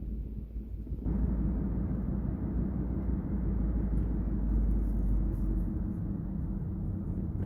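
Road and engine noise of a Kia K5 driving at highway speed, heard inside the cabin: a steady low rumble that suddenly grows louder and fuller about a second in, then holds.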